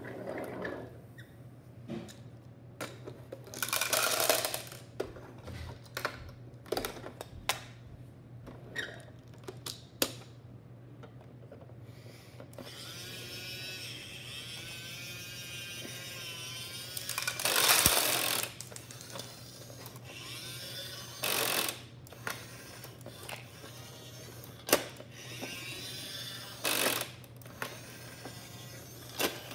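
Hard plastic toy garbage truck and small plastic wheelie bins handled by hand: irregular clicks, knocks and rattles, with ratchet-like clicking of the toy's lifting mechanism and a louder clatter near the middle. A steady low hum runs underneath.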